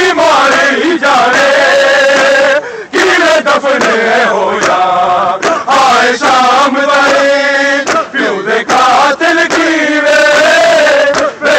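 A crowd of men chanting a Shia mourning lament (nauha) together, loud and close, with short breaks between lines.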